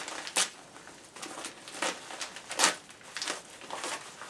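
A mailed package being opened by hand: irregular rustling and tearing of the packaging, with a sharp rip just under half a second in and a louder one about two and a half seconds in.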